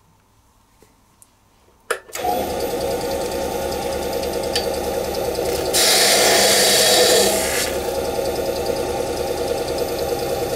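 Small wood lathe clicking on about two seconds in and then running with a steady hum. From about six seconds a knife parting tool cuts into the spinning pine, adding a louder hiss for about a second and a half as the piece is parted off.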